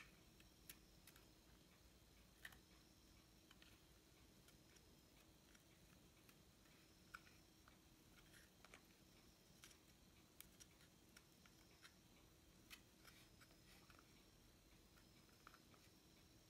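Near silence with faint, scattered small clicks and ticks as fingers handle wires and terminal connections in a water pump motor's terminal box while a run capacitor is wired in.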